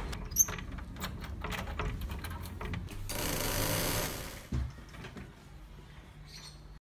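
A wooden door's lever handle and latch being rattled, with rapid clicks for about three seconds, then a rushing hiss for about a second as the door swings open and a single thump. The sound cuts off abruptly just before the end.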